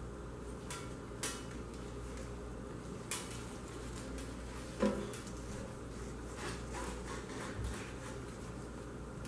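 Handling noise as wires are fished through fiberglass sleeving on the sheet-metal base of a commercial toaster: scattered light clicks and rustles, with one louder knock near the middle. A steady low hum runs underneath.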